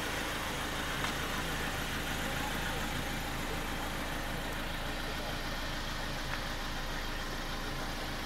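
Ford Transit minibus diesel engine idling steadily.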